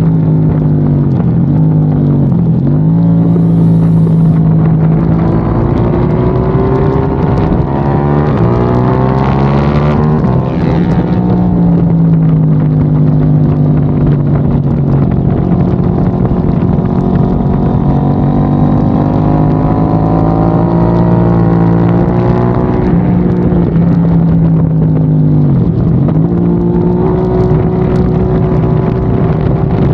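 KTM 890 Duke R's parallel-twin engine under hard riding, heard from onboard over steady wind rush. Revs climb in long pulls and drop sharply about six times as the rider rolls off and shifts for the corners.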